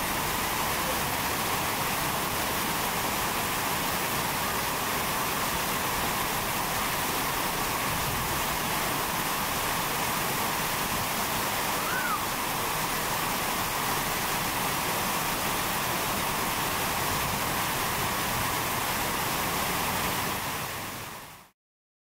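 Steady rush of flowing water, an even hiss that fades out shortly before the end.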